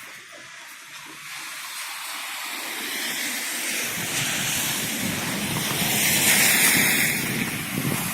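A road vehicle passing close by: a hissing tyre-and-engine noise that builds steadily to its loudest about six to seven seconds in, then starts to fade.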